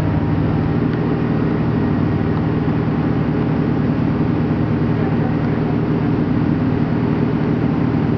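Passenger-saloon running noise of an Irish Rail 29000 class diesel railcar on the move: a steady low drone from the underfloor diesel engines and running gear.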